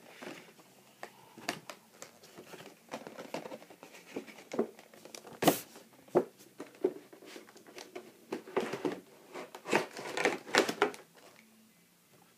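Cardboard box and packaging being opened and handled: rustling and crinkling with scattered knocks and scrapes. A sharp knock about five and a half seconds in is the loudest, and there is a busier flurry of handling near the end.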